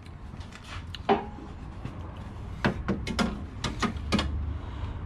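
A screwdriver clicking and knocking against the plastic grille of an 80 Series Land Cruiser while the grille's centre screw clip is pushed out, with a sharp knock about a second in and a quick run of clicks a little later.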